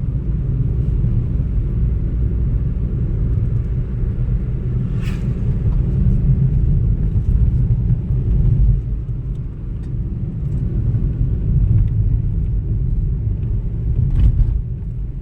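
Steady low rumble of a car driving along a road, with a brief click about five seconds in and another near the end.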